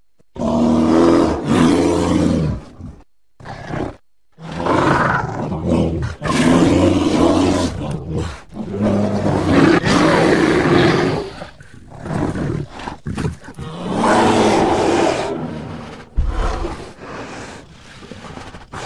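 A bear growling and roaring: a string of deep, rough calls, each one to three seconds long, with short breaks between them and weaker calls near the end.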